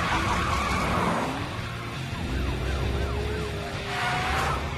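Cartoon police car driving off, its engine rising in pitch as it speeds up. From about two seconds in, a siren warbles in quick rising-and-falling cycles, about four a second.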